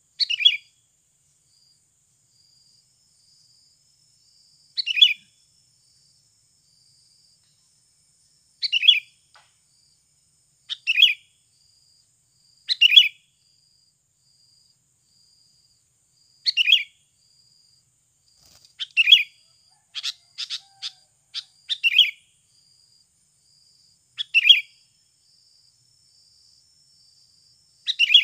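Sooty-headed bulbul (kutilang) decoy giving short, bright call phrases every two to four seconds, with a quick run of sharp clicks about twenty seconds in, calling to lure wild bulbuls.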